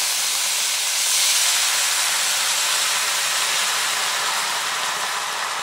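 White wine poured into a hot cast-iron skillet of caramelized red onions, hissing and sizzling as it deglazes the pan for a pan sauce. The hiss is steady and eases slightly near the end.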